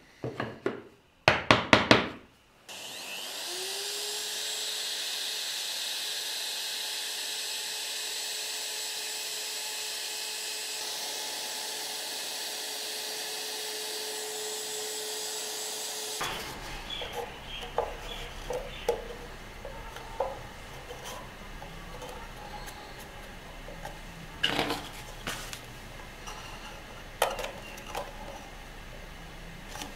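A few sharp knocks, then a router starts about three seconds in, its pitch rising and settling into a steady run as it cuts stopped dados in small hardwood parts. The run cuts off abruptly about halfway through. After that come light clicks and knocks of spring clamps being fitted onto a wooden box.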